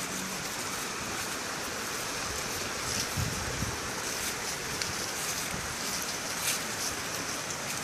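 Steady outdoor rushing noise, wind or water, with a few brief crackles of footsteps on grass and fallen leaves.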